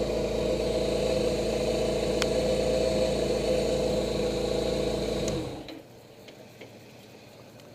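Suzuki GS850's air-cooled inline-four engine running steadily, cutting in suddenly and dying away a little over five seconds in, leaving a quiet background with a few faint clicks.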